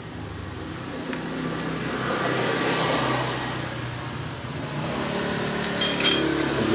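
A motor vehicle's engine running nearby, growing louder over the first few seconds, over a steady low hum. Near the end come a few light metallic clinks from a metal tool being set down.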